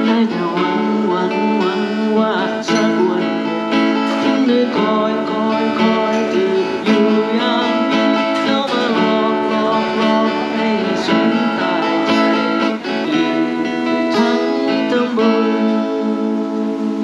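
Acoustic guitar played live, a continuous tune of changing notes.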